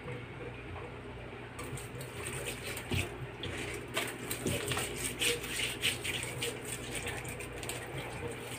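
Wet handling noise as a raw whole chicken is rubbed with coarse salt and turned in a stainless steel sink. Irregular small splashes and slaps of water start about a second and a half in, over a steady low hum.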